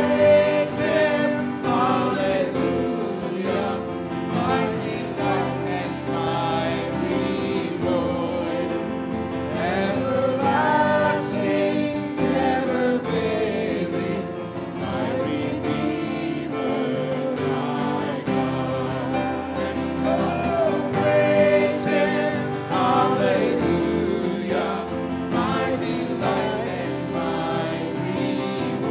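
A woman and two men singing a gospel hymn into microphones, with instrumental accompaniment.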